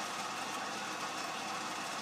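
Atlas 10-inch turret lathe running steadily under power, its spindle turning half-inch bar stock during a V-groove and parting-off cycle.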